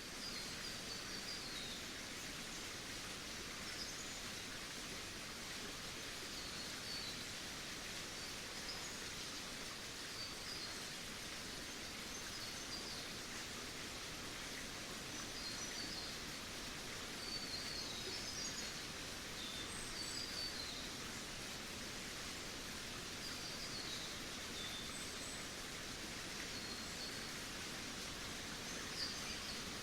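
Steady outdoor ambient rush of noise with small birds chirping: short high-pitched chirps every second or two.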